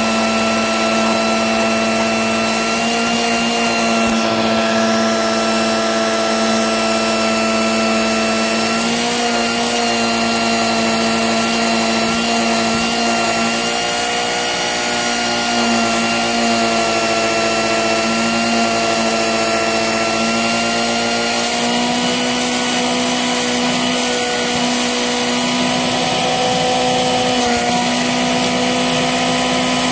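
A motor running steadily, a continuous droning hum whose pitch wavers slightly.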